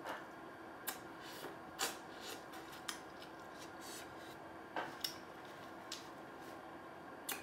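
Close-miked chewing of corn on the cob: scattered short, crisp crunches and mouth clicks, about one or two a second, over a faint steady hum.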